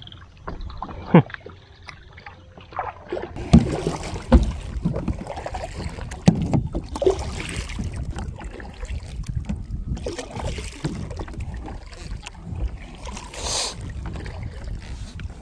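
A plastic kayak being paddled: paddle blades dipping and water splashing and rushing along the hull, in surges every three seconds or so, over a low rumble of wind on the microphone. The first few seconds hold scattered knocks and drips from the paddle.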